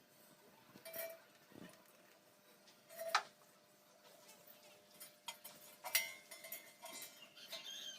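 Faint scattered clicks and light taps, a few at first and more closely spaced near the end, over a faint steady hum.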